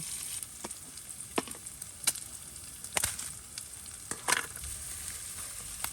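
Food sizzling steadily in a hot pan, with several sharp clicks through it.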